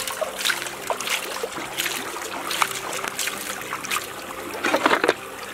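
Water splashing and sloshing in a metal basin as hands rub and wash softshell turtle carcasses, with a shallow stream running over stones. The splashes come in irregular strokes, the loudest cluster near the end.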